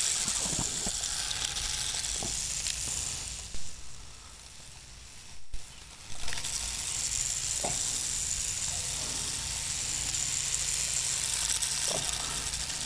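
Small electric RC drift car running on asphalt, its motor and hard drift tyres making a steady high hiss. The hiss drops away for about two seconds a few seconds in, then picks up again.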